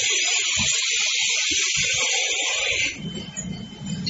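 Sudden hiss of compressed air from a prefabricated-bag packaging machine for six-roll kitchen towel packs, lasting about three seconds and then cutting off.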